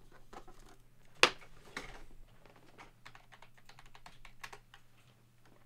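Typing on a computer keyboard: a run of irregular key clicks, with one sharper knock about a second in.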